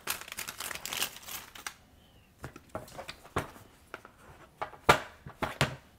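Thin clear plastic protective film crinkling as it is peeled and crumpled in the hand, followed by scattered light clicks and knocks of a cardboard phone box and its insert being handled, the sharpest knock about five seconds in.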